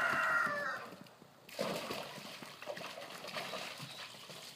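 A dog splashing and moving about in a plastic kiddie pool, water sloshing, from about a second and a half in. Before that, a long steady-pitched call ends under a second in.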